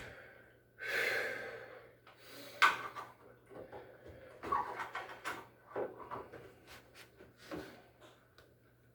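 Handling noise during a washer repair: a scraping swish about a second in, then scattered clunks, clicks and taps of parts and tools being moved, growing sparser toward the end, over a faint steady low hum.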